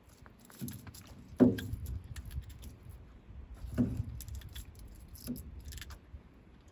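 Sockeye salmon being worked free of a drift gillnet at the side of a boat: a few dull thumps, the loudest about a second and a half in, with light clicking and rattling throughout.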